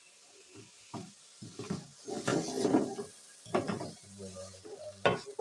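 A cooking utensil knocking and scraping in a pot, in irregular bursts with a few sharp clacks, and a short low hum about four seconds in.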